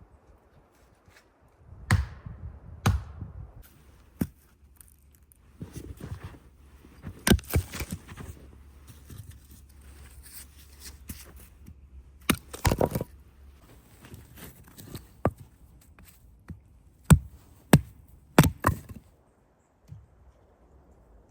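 A series of irregular sharp chopping knocks, about a dozen in all, some coming in quick pairs.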